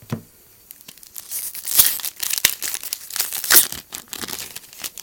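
Foil wrapper of a baseball card pack being torn open and crinkled, a dense run of sharp crackles that starts about a second in and goes on to the end.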